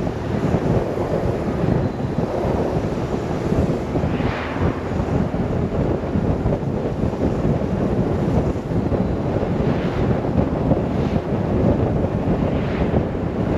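Wind rushing and buffeting over the microphone of a motorcycle riding at speed, a loud steady rush that swells briefly a few times.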